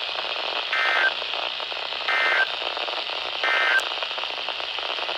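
Weather radio broadcast received with a steady hiss, and three short bursts of screeching digital data tones about a second and a half apart: the SAME end-of-message code that closes an Emergency Alert System warning.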